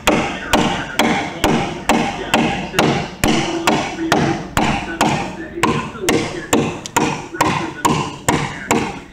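Council Tool pack axe chopping into a timber beam, a steady run of sharp strikes about two a second as it scores a row of cuts across a notch.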